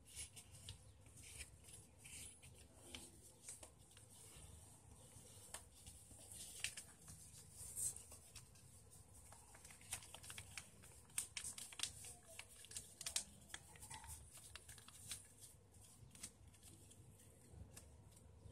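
Faint rustling and crackling of a sheet of paper being folded and creased by hand, with scattered sharp crinkles that come thicker a little past the middle.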